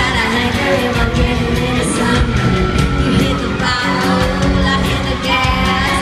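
A live country band with electric guitars plays loudly while a woman sings lead through the PA, heard from within a concert crowd. A little after two seconds in, one note is held for about a second and a half.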